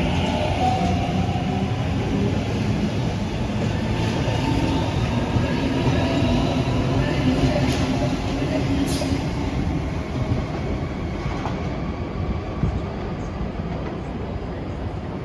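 Passenger train running along the platform on steel rails, its noise slowly fading.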